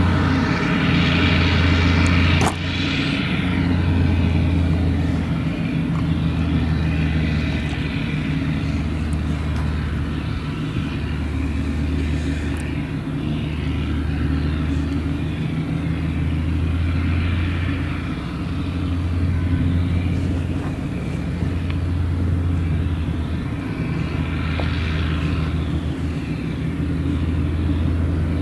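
Claas Jaguar 970 self-propelled forage harvester running under load as it chops maize, a steady engine drone with a low hum that swells and fades about every two seconds. A sharp click comes about two and a half seconds in.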